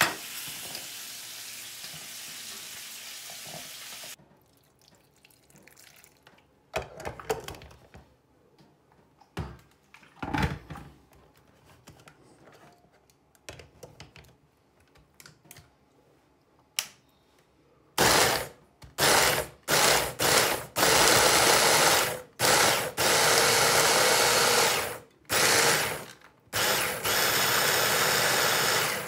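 Electric hand blender with a mini chopper attachment, pulsed in several short bursts and then run in longer stretches, chopping onion, ginger, garlic and red chillies into a coarse paste.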